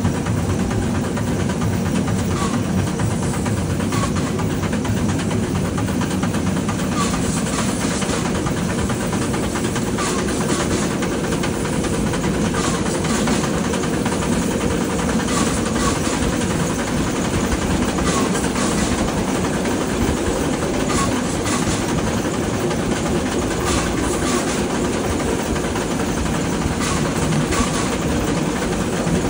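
Steam train running along the track: a steady rumble and rattle of wheels and running gear on the rails, with faint ticks about once a second.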